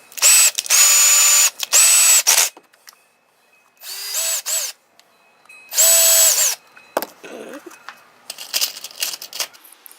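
Electric drill run in about five short bursts, each spinning up to a steady whine and winding down, followed near the end by a second or so of scraping and rattling.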